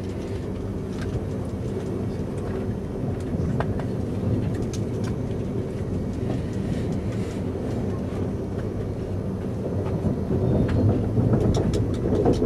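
Inside a moving Eurostar train's cabin: a steady low rumble with a hum of several steady tones from the running train, and scattered sharp clicks from the wheels on the rails. It grows louder near the end.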